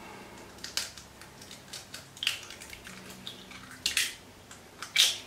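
Eggs being cracked and emptied into a glass bowl: a few sharp, scattered cracks and taps, the loudest near the end.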